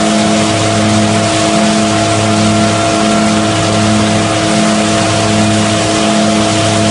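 Önal Makine FPM 1500 hazelnut threshing machine running loud and steady, with several steady tones over a rushing noise and a regular throb a little faster than once a second.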